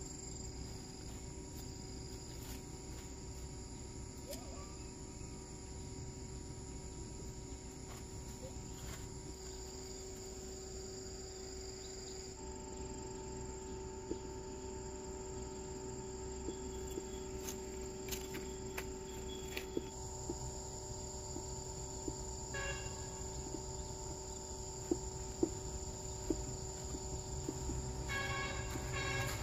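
A steady insect chorus trilling on several unbroken high pitches, over a low rumble. A few light clicks and taps come through in the second half.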